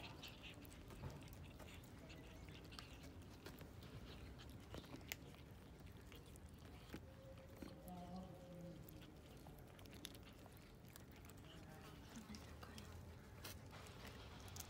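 Stray cats faintly chewing and crunching food, with scattered small clicks of biting.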